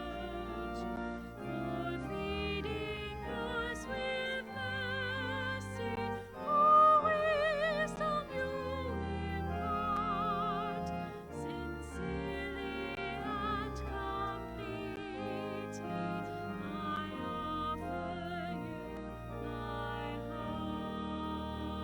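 Slow sacred music: a solo melody line with wide vibrato over sustained low chords, swelling louder about seven seconds in.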